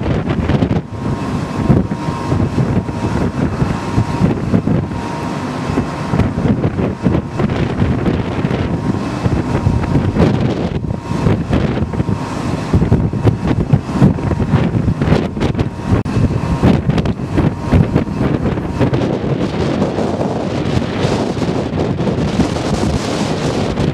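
Gusty wind buffeting the microphone, a loud rumbling rush that rises and falls with the gusts. A faint steady whine sits underneath during the first several seconds.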